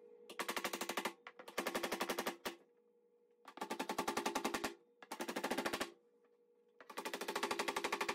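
Claw hammer striking nails into a particleboard filler strip under a laminate countertop, in five quick runs of rapid blows.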